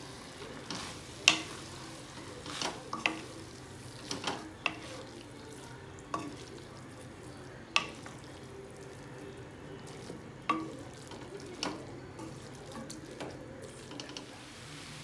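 Two wooden spatulas tossing noodles in a metal kadai, knocking and scraping against the pan about ten times at irregular intervals over a faint frying sizzle.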